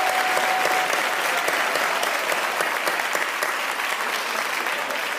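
Theatre audience applauding, the clapping slowly dying down, with a last held note of the music fading out about a second in.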